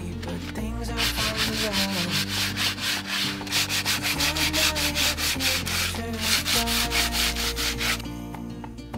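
Hand sanding of a wooden bench's slats with a folded sheet of sandpaper: quick back-and-forth strokes, about four to five a second, starting about a second in and stopping about a second before the end. It is the sanding-back of an old outdoor bench before it is restained.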